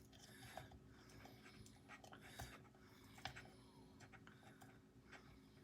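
Near silence with a few faint, scattered clicks and light taps of small parts being handled and screwed together, over a faint steady hum.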